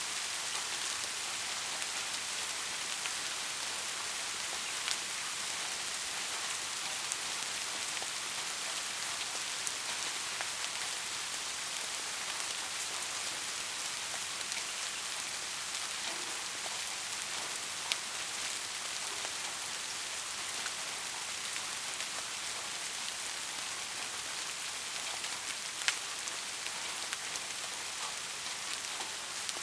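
Steady rain falling, an even hiss with scattered individual drops ticking on a surface and a few louder single drop hits.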